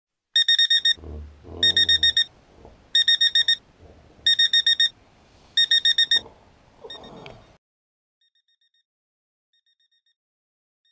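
Electronic alarm clock beeping: five quick bursts of rapid high beeps, each about half a second long and about a second and a half apart, stopping about six seconds in. It is a wake-up alarm going off.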